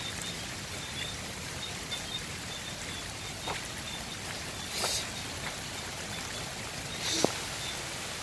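Steady rain falling, with water running, and a few brief sharp sounds, the loudest about seven seconds in.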